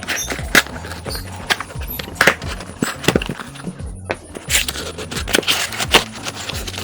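Background music with a low steady bass line, over a run of sharp clicks and crackles from a phone's retail box and its packaging being handled and opened.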